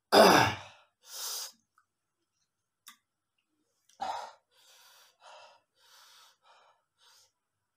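A man breathing out hard through his mouth against the burn of very spicy noodles: a loud breath out at the start, a shorter one about a second later, another at about four seconds, then a run of short, faint puffs.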